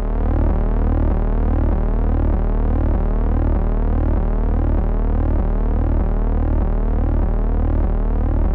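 Electronic synthesizer drone: a steady low hum pulsing about twice a second, with a repeating rising sweep above it.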